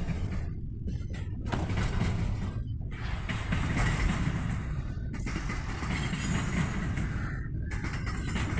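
Container freight train wagons rolling past on the rails: a steady low rumble, with a higher rushing wheel-and-rail noise that swells and fades every second or two as the wagons go by.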